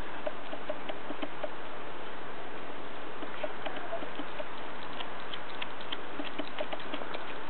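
Groenendael puppy chewing and gnawing raw green tripe: irregular small wet clicks and smacks over a steady background hiss.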